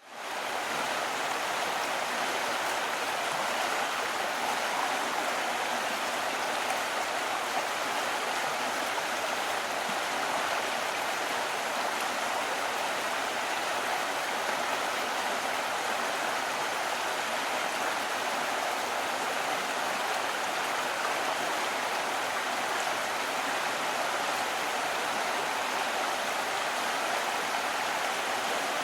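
Steady rush of running water, an even, unbroken sound with no changes.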